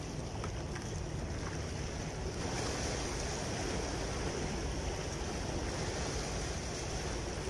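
Steady wind buffeting the microphone over the wash of small sea waves against rocks, with no distinct events; the hiss grows a little stronger about two and a half seconds in.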